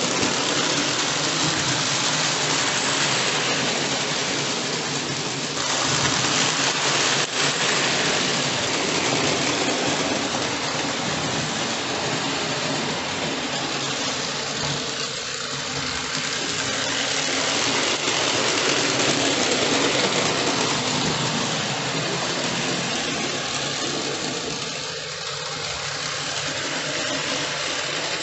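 Hornby Dublo three-rail model train running round the layout: the locomotive's motor and the wagons' wheels on the metal track make a steady whirring noise.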